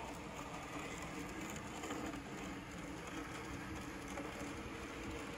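N scale model train running on the layout's track: a faint, steady whir from the small locomotive motor and wheels.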